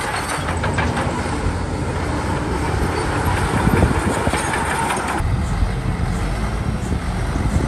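Shantui DH17B2 crawler bulldozer working: its diesel engine runs steadily under a clanking rattle from the steel tracks. A higher hissing noise in the mix cuts off suddenly about five seconds in.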